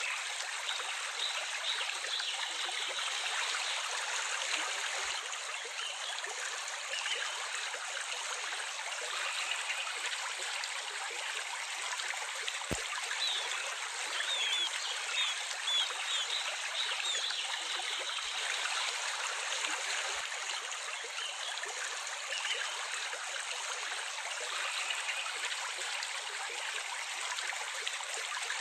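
A stream of water running and trickling steadily, with short bird chirps now and then, most of them around the middle.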